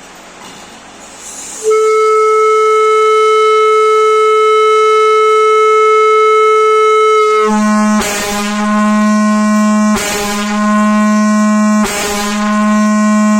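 Ibuki A150ESSH marine air horn sounding a loud, steady blast starting about two seconds in. About halfway through, the note drops to a lower pitch and carries on, broken three times by brief breathy interruptions.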